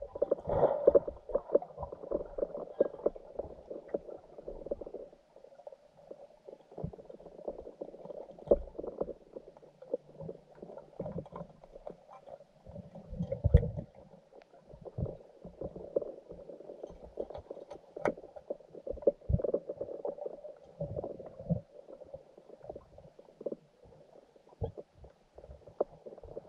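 Muffled underwater noise in a river: irregular knocks, clicks and gurgling, the loudest cluster about thirteen seconds in.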